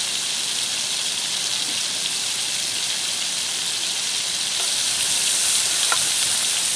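Vegetables and pineapple frying in melted butter in a pan: a steady sizzle that gets a little brighter past the middle.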